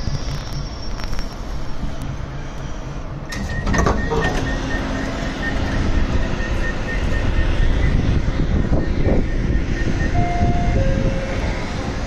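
Baltimore Metro subway train running past the platform, its rumble and wheel noise growing louder about three seconds in. A high beeping tone sounds for a few seconds.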